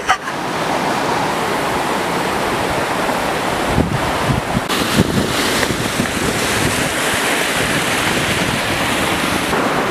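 Creek water rushing and foaming over rocks close by, a steady, even roar. A couple of short knocks sound about four and five seconds in.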